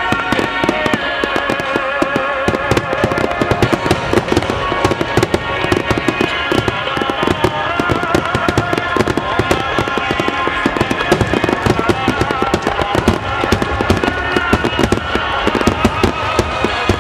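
Star mine fireworks barrage: many shells bursting and crackling in rapid succession, dense bangs with no gap. Music plays steadily underneath.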